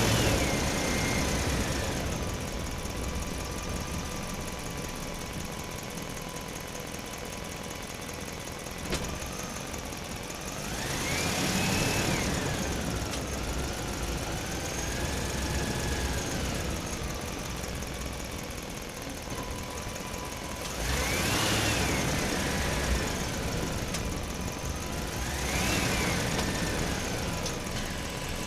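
Truck engine running with a steady low rumble, revved up and let back down three times: about a third of the way in, again past two-thirds, and once more near the end.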